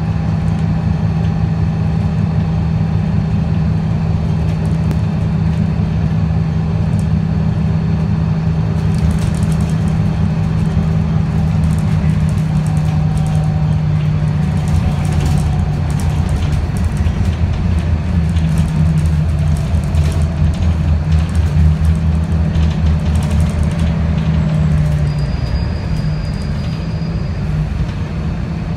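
Scania L94UB CNG city bus engine and ZF 5HP502 automatic gearbox running under way, heard from inside the passenger cabin: a steady low drone with road noise that eases slightly near the end. The uploader calls this gearbox slipping.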